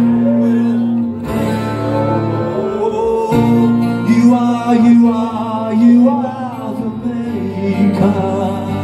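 Acoustic guitar strummed live, with a man singing drawn-out notes over it.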